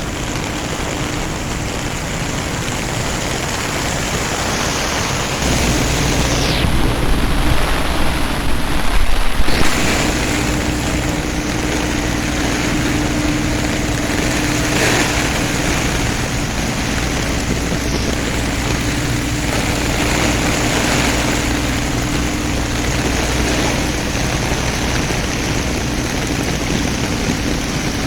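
Heavy rain falling steadily, with a deeper rumble joining about five seconds in and a steady low hum from about nine seconds on.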